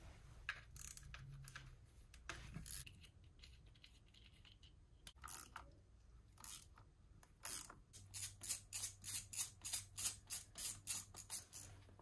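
Hand ratchet wrench clicking as bolts are backed out of the engine's front timing-belt cover: a few scattered clicks, then, about halfway through, a steady run of ratchet clicks at nearly four a second.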